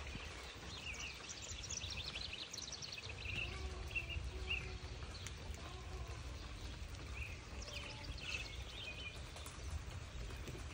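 Songbirds singing outdoors in quick trills and chirps, in one spell over the first few seconds and another near the end, over a steady low rumble.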